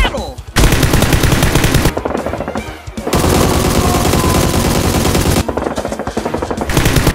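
Rapid automatic gunfire in long, continuous bursts: a dense rattle of shots with a brief break about three seconds in, thinning to scattered, quieter shots in the last couple of seconds.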